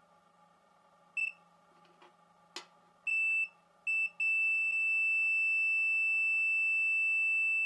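Continuity beeper of a Vevor ET828 multimeter sounding a high, steady tone as the test probes touch a resistor lead whose resistance is below the continuity threshold. There is one short beep, a click, then two broken beeps while the probe contact is made and lost, and from about four seconds in an unbroken tone.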